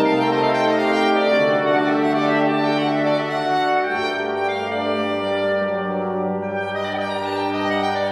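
A soprano saxophone plays a melody of long held notes over sustained chords from a brass ensemble. About four seconds in, the bass note moves lower.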